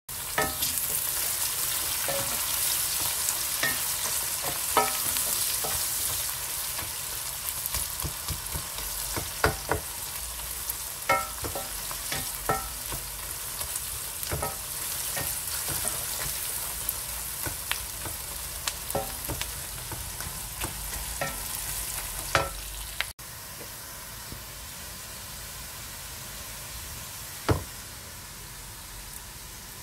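Sliced onions sizzling in hot oil in an aluminium pot while being stirred with a wooden spoon, which knocks against the pot with short ringing taps every second or two. About three quarters of the way through, the sizzle drops to a softer level, with the onions now fried brown.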